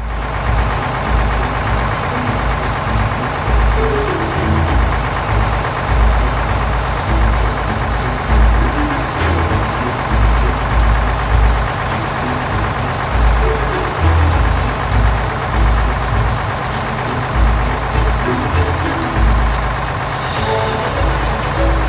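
Large vehicle engine running with a steady, uneven low rumble and mechanical noise. A few short beeps sound near the end.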